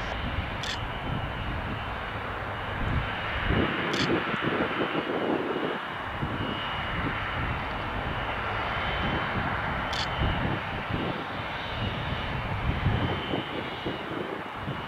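Boeing 777-200ER's jet engines running as the airliner taxis, a steady rumble with a thin high whine. Three brief clicks sound, one early, one about four seconds in and one about ten seconds in.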